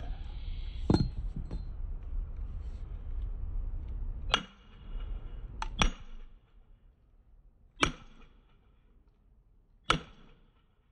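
Sledgehammer striking steel splitting wedges driven into a hickory log. There is a duller knock about a second in, then five sharp blows a second or two apart, two of them in quick succession, each with a short metallic ring, as the wedges open the split in the log.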